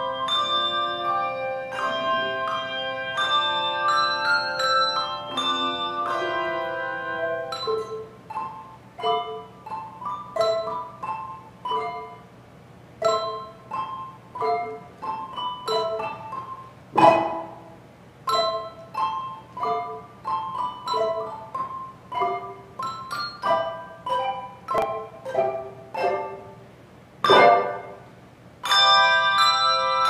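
Handbell choir playing a piece: sustained ringing chords at first, then a long passage of short, quickly stopped notes with two sharp loud strikes, one about halfway and one near the end. Full ringing chords return just before the end.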